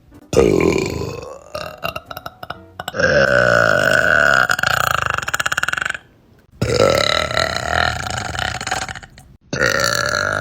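Young women burping: about four long, drawn-out burps in a row, each two to three seconds long, with short abrupt breaks between them.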